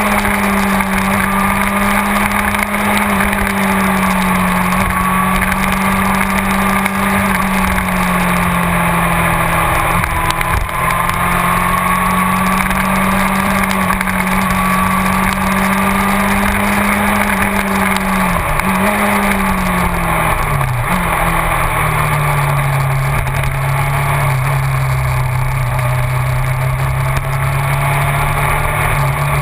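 Yamaha YZF-R6 inline-four sport-bike engine running under way at steady mid revs, its note drifting slowly up and down. About two-thirds of the way through the revs drop and pick up twice, then hold at a lower note.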